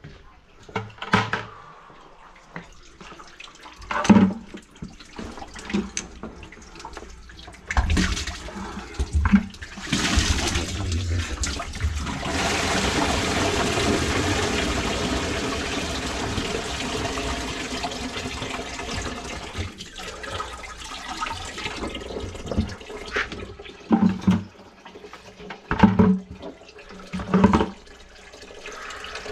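Water rushing like a toilet flush for about ten seconds, starting near the middle and slowly dying away. Scattered clunks and knocks before and after it, from handling tools and drain pipework under the sink.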